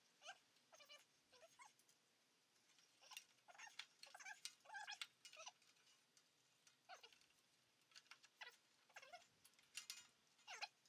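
Near silence, with faint short squeaky chirps scattered through it.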